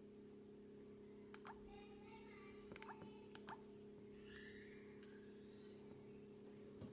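Near silence over a steady low hum, with about six faint, sharp clicks, mostly in pairs, between one and three and a half seconds in.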